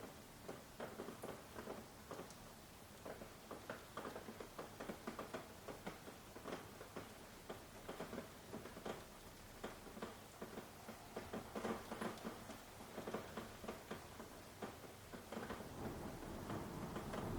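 Light rain falling on leaves, individual drops tapping at an uneven pace over a soft background hiss.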